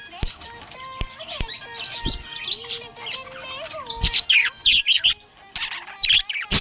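Budgerigar chirping: a quick, varied run of short high chirps and sharp clicks that carries on throughout.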